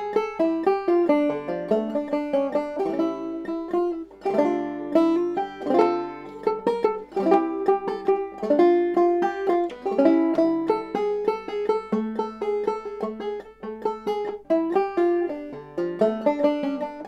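Five-string banjo played clawhammer style: a brisk, unbroken run of plucked notes, made by downstrokes with the backs of the fingernails and thumb plucks. The playing stops at the very end.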